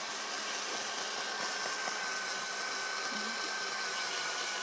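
Engine running with a valve held slightly open and grinding on its seat with lapping compound: a steady mechanical noise with a thin, steady high whine.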